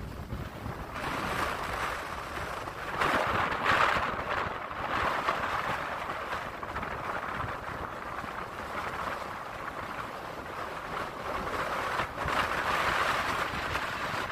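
Strong wind buffeting the microphone over storm surf breaking on the beach. The rush of the waves swells louder about three to five seconds in and again near the end.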